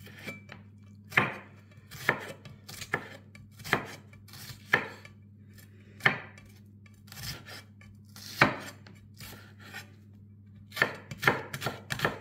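Knife cutting vegetables on a cutting board: sharp, separate knocks of the blade striking the board, roughly one a second, coming in a quick run near the end.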